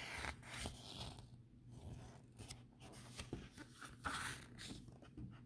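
Pages of a picture book being turned by hand: faint rustling and flicking of paper, in a series of short swishes and clicks.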